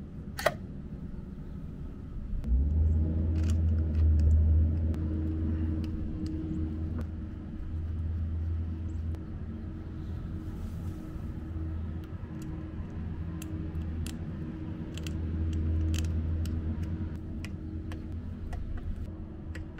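A loud low rumble, like a motor vehicle's engine running, comes in a couple of seconds in and swells and fades in level. Light metallic clicks and taps come and go from small pump parts and a wrench being handled on the outboard's lower unit.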